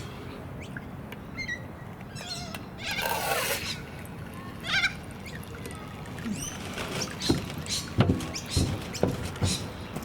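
Pond ambience: small birds chirping now and then, a brief rush of splashing water about three seconds in, and a few light knocks in the last few seconds.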